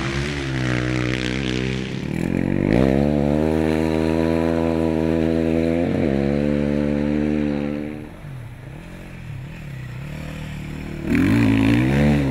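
Rally motorcycle engines revving and accelerating in several shots one after another, the pitch rising and falling with the throttle. The engine sound drops quieter about eight seconds in, then a louder engine comes in about eleven seconds in.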